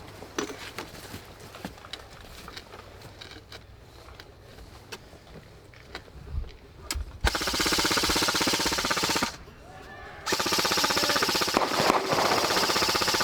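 Airsoft gun firing on full auto in two long bursts, a rapid, even rattle of the electric gearbox cycling, the first about two seconds long and the second about three. Before them there are only scattered light clicks.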